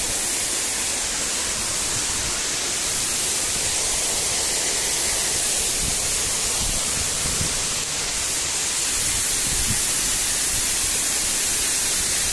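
Steady rush of a rocky mountain stream and waterfall, an even, unbroken hiss of water.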